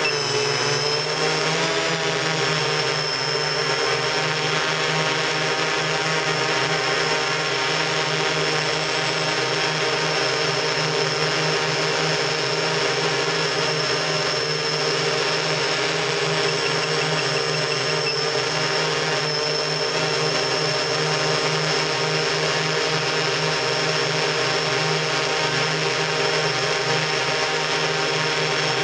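Octocopter's eight electric motors and propellers running, heard on board, a steady multi-tone whine. The pitch wavers in the first couple of seconds as the motors change speed, then holds steady while it hovers.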